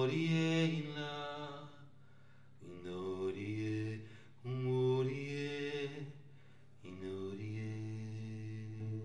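A man singing unaccompanied in four long, slow phrases, with short breaks between them.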